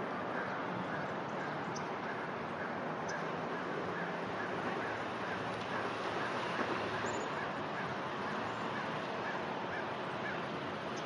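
Steady outdoor background noise with no aircraft passing overhead. Over it a bird calls again and again, about twice a second, with a few faint high chirps from small birds.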